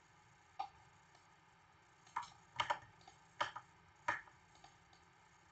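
Six scattered, sharp clicks of computer mouse and keyboard controls, some in quick pairs, against quiet room tone.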